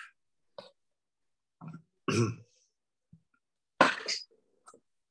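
A man's brief throat sounds, throat clearing and a short cough, in a few separate bursts with a faint click between.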